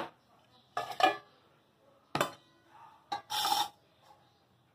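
Utensil knocking and scraping against a stainless-steel mixing bowl as the last of the kibble-and-rice dog food is scooped out: several separate sharp knocks, then a short scrape near the end.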